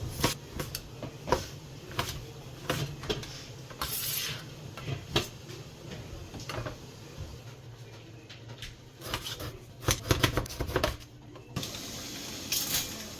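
Tableware clinking: spoons and chopsticks tapping and scraping against bowls and dishes in irregular clicks, busier for a couple of seconds about two-thirds of the way through.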